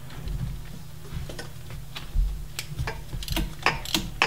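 Ratchet wrench clicking as it is swung back and forth on a socket extension, loosening manifold bolts. A few scattered clicks give way to a quicker run of clicks over the second half.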